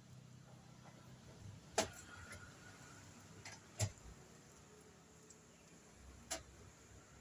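Three sharp knocks, each a couple of seconds apart, over faint background noise.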